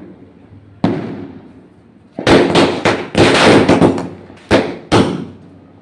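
Firecrackers going off on the ground: one sharp bang about a second in, then a rapid run of loud bangs and crackling for about two seconds, followed by two more single bangs.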